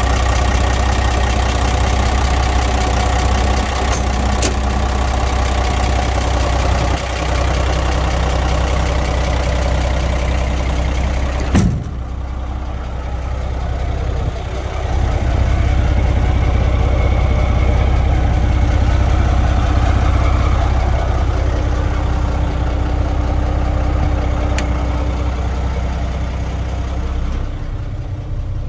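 Volvo N720 truck's diesel engine idling steadily. It is heard close up at first; about twelve seconds in there is a click, and after it the sound turns duller and less hissy, as if from further away.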